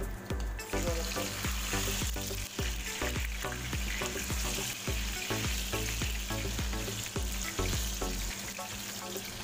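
Anchovy fritters (tortang dilis) sizzling as they shallow-fry in hot oil in a nonstick pan, with a spatula stirring and turning them. The sizzle grows louder about a second in.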